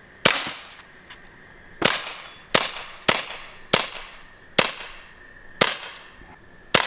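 1964 Crosman 600 .22 semi-automatic CO2 pellet pistol firing eight sharp shots in quick succession, about half a second to a second and a half apart, each with a short echo. The action cycles each shot without jamming.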